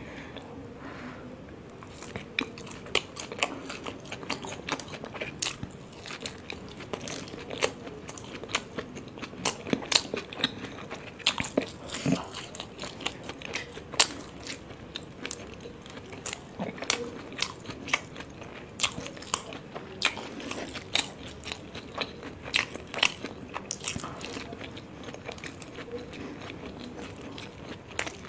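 Close-miked chewing of momos (dumplings): an irregular run of short mouth clicks and smacks, several a second.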